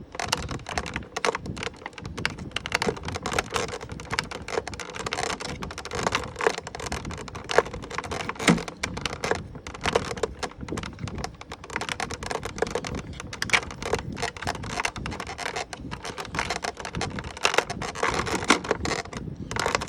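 Plastic packaging being handled as an action figure is worked out of it: a dense, irregular run of crinkling and clicking.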